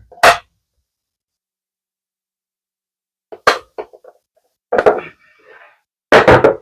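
A few short, sharp knocks or clicks: one at the start, then, after a silent gap of about three seconds, three more spaced a second or so apart.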